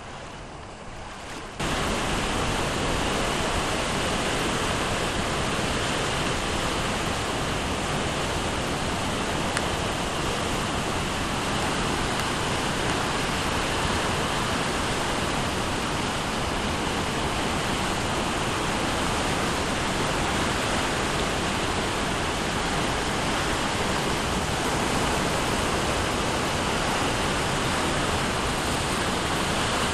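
Turkey River floodwater rushing: a steady, even noise that starts abruptly about a second and a half in.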